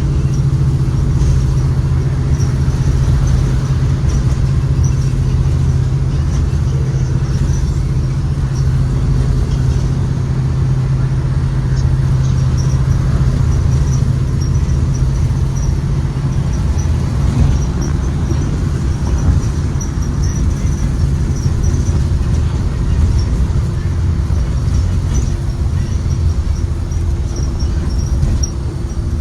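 Ford 7.3L V8 engine of a 2023 Blue Bird Vision school bus running under way, with road noise, as heard on board. Its steady hum drops to a lower pitch a little past halfway.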